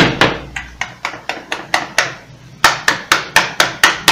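A fast run of sharp knocks, about six a second with a short pause a little past halfway, as the metal housing of an electric hair clipper is rapped to knock out hair packed inside it.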